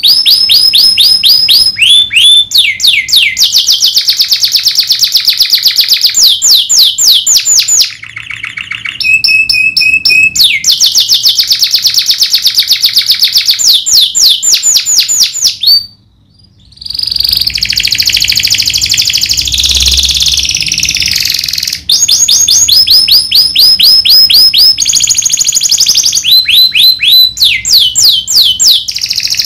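Domestic canary singing loud, sharp rolling trills: rapid runs of repeated high notes that switch from one trill to the next. About halfway through there is a short pause, then a harsher, buzzier passage before the clear trills resume.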